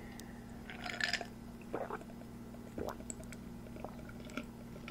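Swallowing gulps of a drink close to a microphone: a few soft gulps roughly once a second over a faint steady low hum.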